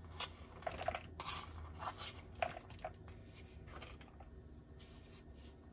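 Chopped spring onions being scraped from a small plastic dish into a plastic bowl of boiled kidney beans: faint scattered scrapes, rustles and light plastic ticks.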